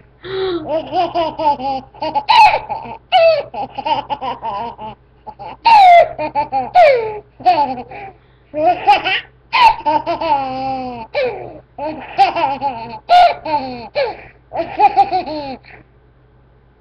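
A toddler of almost two laughing hard in a long run of high-pitched giggling bursts, stopping about a second before the end.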